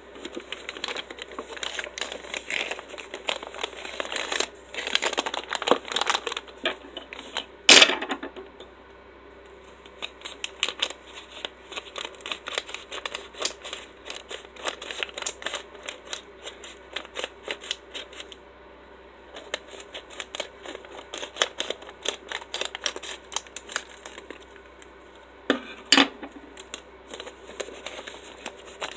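Plastic poly mailer being cut open with scissors and handled: a dense run of crinkles, snips and rustles, with a louder crackle about eight seconds in and another near the end.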